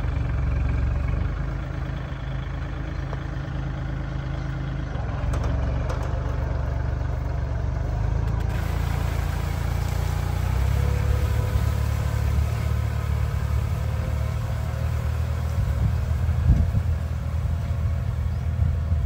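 The engine of a JCT BS400 boom-sprayer rig runs steadily as the machine drives along, with one brief knock late on.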